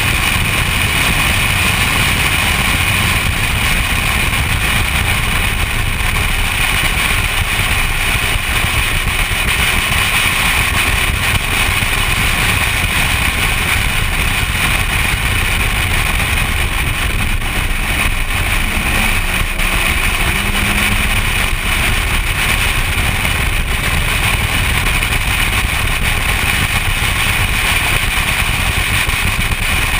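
Steady rush of wind over an outside-mounted camera on a BMW at track speed, with the car's engine and tyre noise underneath and no clear gear changes or revving.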